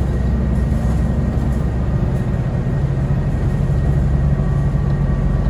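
King Long city bus running, heard from inside the passenger cabin: a steady low drivetrain hum whose note shifts upward about two seconds in.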